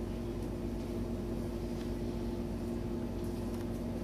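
Room tone: a steady low hum of two held tones over a faint hiss, unchanging throughout.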